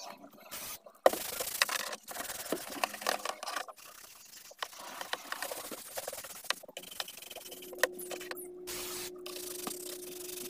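A sponge scrubbing the plastic steering wheel and dashboard of a car, an irregular rubbing and scraping broken by handling clicks and knocks. A steady hum comes in near the end.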